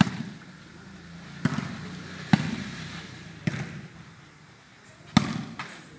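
Volleyball smacks during a shooting volleyball rally: five sharp hits of the ball, spaced irregularly over about five seconds.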